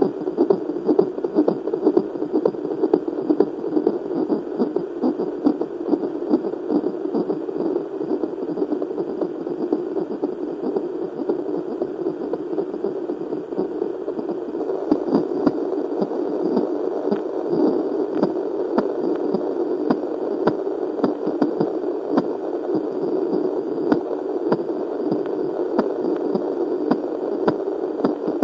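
Fetal heartbeat heard through a Doppler fetal heart monitor: a continuous whooshing, rapid pulsing sound from the baby's heart in the womb.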